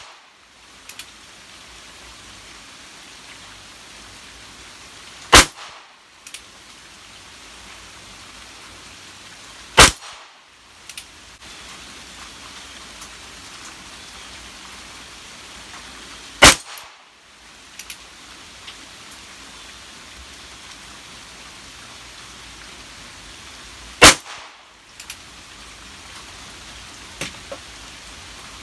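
Four single shots from a Ruger Wrangler .22 LR single-action revolver, spaced several seconds apart, each followed by a few faint clicks.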